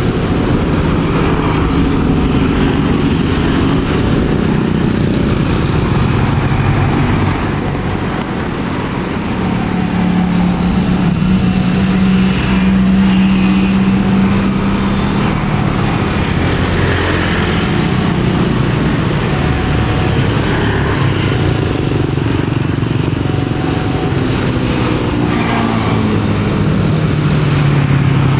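Loud, steady engine noise with a low drone that shifts in pitch several times.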